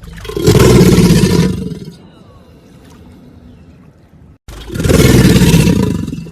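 A crocodilian giving two loud, rough hissing calls, each about a second and a half long, the second following about three seconds after the first.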